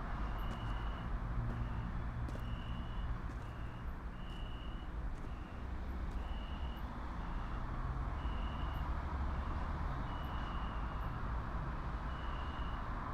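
A vehicle's electronic warning beeper sounds about once a second, its single high tone alternating long and short beeps, over a steady low rumble.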